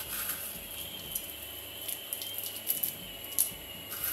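Crushed nacho chip crumbs sprinkled into a pan of melted cheese and cream, giving light scattered crackles and ticks.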